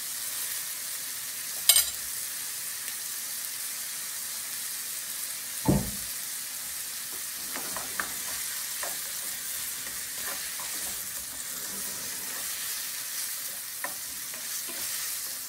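Shrimp and onions sizzling in oil in a frying pan while a spatula stirs them, scraping and tapping against the pan. A sharp click comes a little under two seconds in and a knock about six seconds in.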